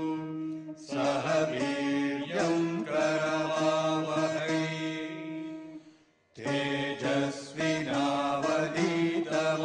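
Chanted vocal music over a steady drone. It fades out about six seconds in and starts again after a brief gap.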